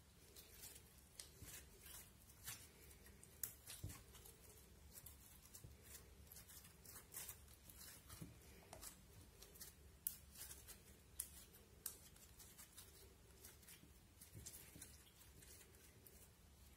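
Glossy slime being kneaded and squeezed by hand, giving faint, irregular sticky clicks and pops as it folds and pulls apart.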